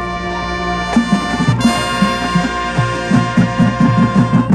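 Marching band brass holding a loud chord over bass drum hits that come faster and faster, then the whole band cuts off together: the closing chord of a piece.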